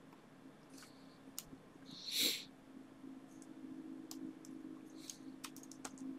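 Scattered faint computer mouse clicks and keystrokes as values are typed into a software form. About two seconds in there is one loud sniff or breath, and a low steady hum runs underneath.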